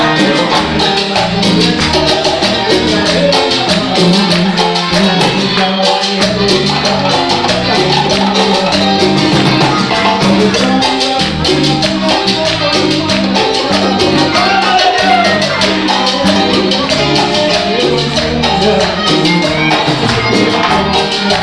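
A live Latin band playing tropical dance music with a steady beat, with keyboard, congas and timbales, bass guitar and accordion.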